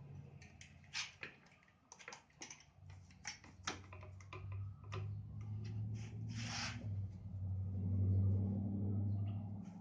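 A run of sharp clicks and knocks from clamps and wood being handled, as a board and belt sander are set up to be clamped down. A low hum underneath swells over the last two or three seconds.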